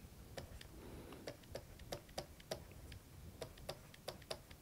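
Faint, irregular clicks of a stylus tapping and writing on a pen tablet, a dozen or so short ticks in a few seconds.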